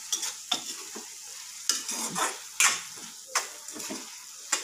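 A metal spatula stirring and scraping cluster beans and crushed peanuts around a metal kadhai, with a steady frying sizzle under it. Sharp scrapes come at irregular intervals, several in a few seconds.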